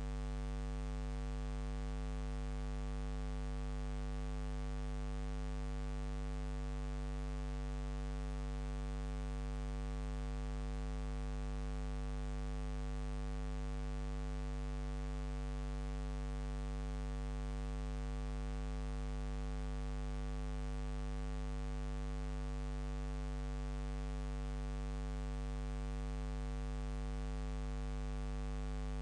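Steady electrical mains hum with a stack of buzzing overtones and a light hiss underneath, with no other sound.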